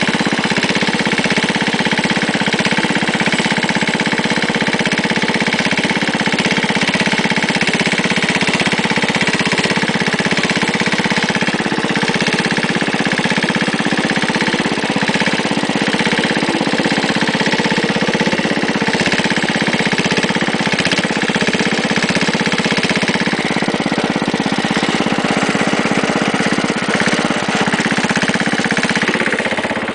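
Wheel Horse garden tractor engine running steadily at an even speed.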